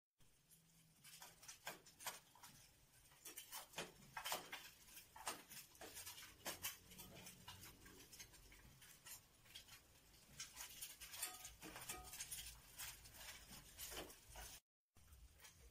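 Faint, irregular clicks and scrapes of a metal spatula working in a small frying pan on a gas stove.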